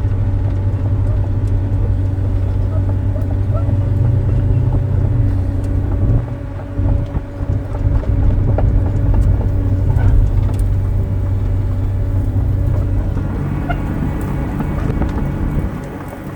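1999 Daewoo 290 excavator's diesel engine running, with a steady whine over it. The sound drops briefly about six seconds in and again near the end.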